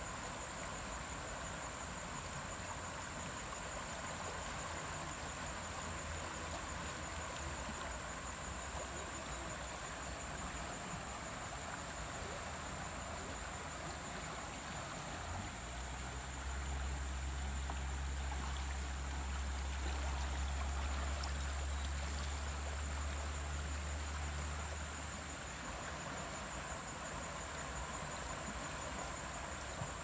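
River water running fast over a shallow, rippled bed: a steady rushing with a constant high buzz over it. A deep low rumble comes in about halfway through and fades away about ten seconds later.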